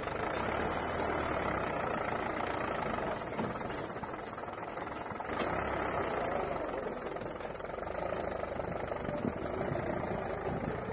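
JCB backhoe loader's diesel engine running steadily while the backhoe arm digs, its pitch rising and falling a little now and then as the hydraulics take load.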